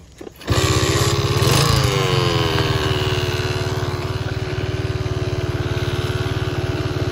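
Small motorcycle engine running as the bike sets off. It comes in loud and sudden about half a second in, swells and dips in pitch briefly, then holds a steady note.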